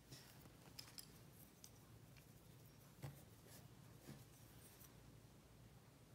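Near silence: a low steady hum of room tone with a few faint taps and light scrapes from a cotton swab and paintbrush working on a porcelain plate, the clearest tap about three seconds in.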